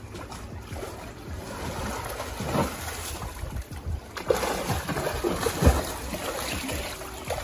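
Water splashing from a swimmer's kicks and arm strokes in a pool, getting louder and choppier from about halfway through as the swimmer comes close.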